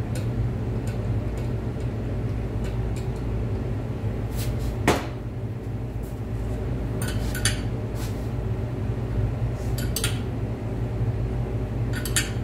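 Sparse metallic clinks and knocks of a wrench and hand tools on a homemade threaded-rod harmonic damper installer, the loudest about five seconds in, over a steady low hum.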